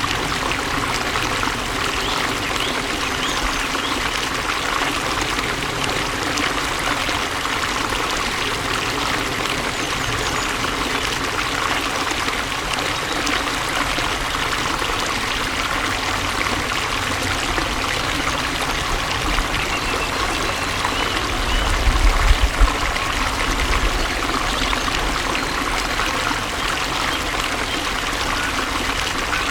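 Flowing water running steadily, with an even rushing trickle. About three-quarters of the way through there is a brief low rumble.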